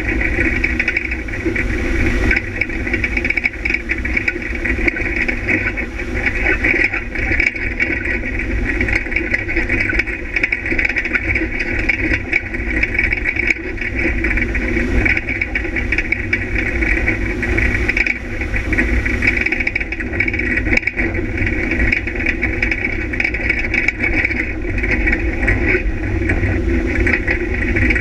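Off-road vehicle's engine running at a steady, even pace while driving along a dirt track, with a steady low rumble underneath and no clear revving or gear changes.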